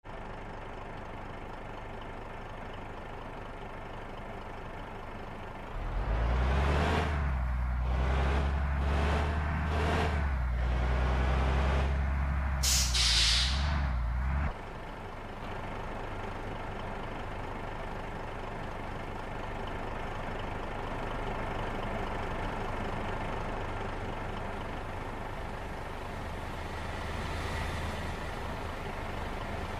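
Bus air horns (telolet) sounding loud and low for about nine seconds, pulsing about once a second, with a burst of air hiss near the end before they cut off abruptly. A steady vehicle drone runs before and after.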